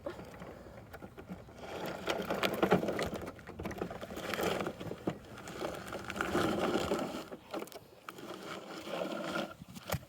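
Plastic toy garbage truck being worked by hand: a busy clicking, scraping rattle of its plastic parts that swells and eases several times.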